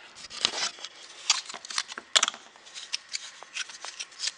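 Hands moving and handling a new car battery: a string of irregular clicks, taps and short scrapes of its hard plastic case and fittings.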